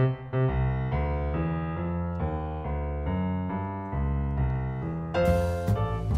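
Background music: a piano-style keyboard playing a melody with chords over a low bass line. A brighter, fuller layer comes in about five seconds in.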